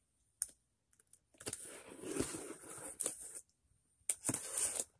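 Cardboard and paper packaging rustling and crinkling as a box is handled and opened, in two spells, with a short tap about half a second in.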